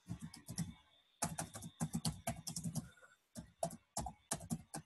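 Computer keyboard typing in quick runs of keystrokes, with two short pauses between words.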